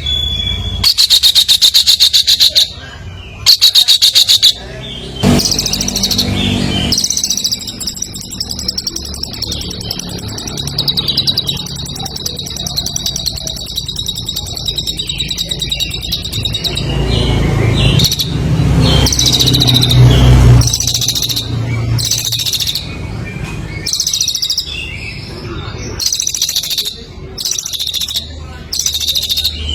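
A contest songbird in full, non-stop song: loud, rapid chattering trills and stuttering phrases, with one long unbroken trill lasting about ten seconds in the middle.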